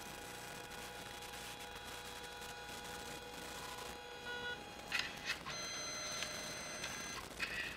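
Faint steady electronic whine made of several high tones, shifting to a new set of tones about five and a half seconds in. Two short clicking bursts come about five seconds in and near the end.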